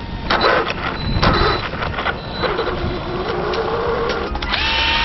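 Traxxas Hoss RC monster truck's electric motor whirring and its drivetrain clattering as it drives on grass with a broken rear drive shaft; the whine rises in pitch a little past the middle. Music comes in near the end.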